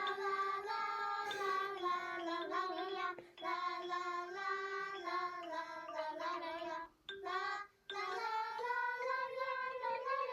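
A high, childlike cartoon voice singing a short song in phrases of long held notes, with brief breaks between phrases; fairly quiet.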